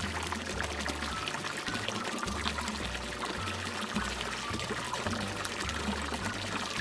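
Water pouring in a steady stream from a toy kitchen sink's faucet as plastic play fruits are rinsed under it, with a few light plastic clicks from the handling.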